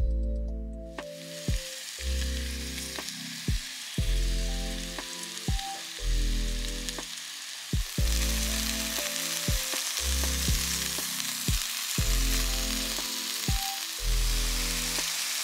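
Rolled zucchini ribbons frying in hot oil in a pan, a steady sizzle that starts about a second in and grows louder about eight seconds in as the pan fills. Background music with a bass line and a regular beat plays throughout.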